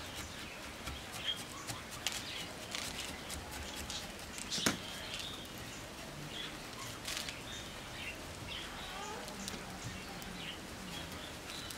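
Small birds chirping on and off in the background, with scattered light clicks and one sharper click a little before halfway.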